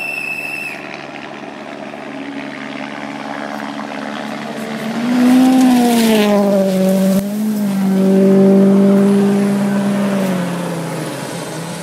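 Ford Fiesta RS WRC rally car's turbocharged four-cylinder approaching and passing at speed on a gravel stage: the engine grows louder and is at its loudest from about five seconds in, with a hiss of flung gravel as it goes by. The engine note drops, holds for a couple of seconds, then fades near the end. A short high steady tone sounds at the very start.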